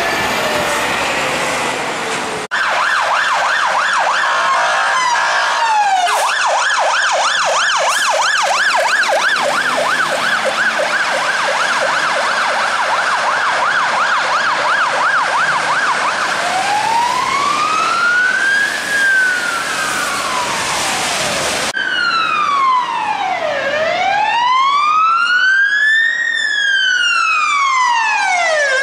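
Fire engine sirens sounding on an emergency run: a rapid up-and-down yelp, then a slow rising and falling wail. The siren pattern changes abruptly twice.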